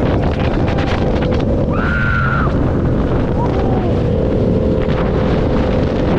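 Motorcycle engine running at a steady pace, buried in heavy wind noise on the microphone, with a brief higher-pitched tone about two seconds in.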